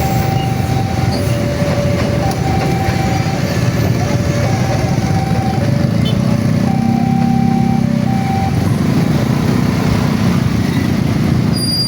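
Railway level-crossing alarm sounding its two-tone warning, a high and a lower tone alternating about once a second, over the low rumble of road traffic. The alarm stops about eight and a half seconds in.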